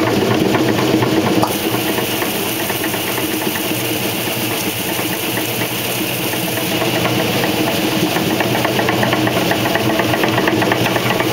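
1968 Kenmore 900 series top-loading washer, Whirlpool-built, in its spin cycle: the basket spinning with a steady motor and drive hum and a fast, even ticking rattle. About a second and a half in it gets slightly quieter and a hiss comes in.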